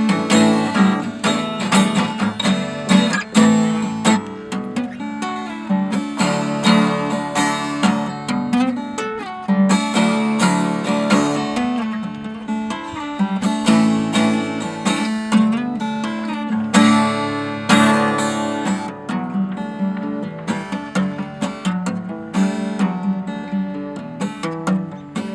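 Solo acoustic guitar played fingerstyle, a steady run of plucked notes and strummed chords.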